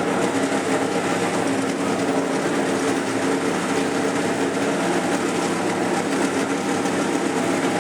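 Steady engine or machinery drone running without a break, with a hum holding a few constant pitches.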